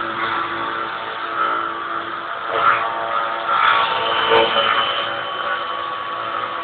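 CNC router running: a steady machine whine made of several steady tones, with noisier bursts between about two and a half and four and a half seconds in.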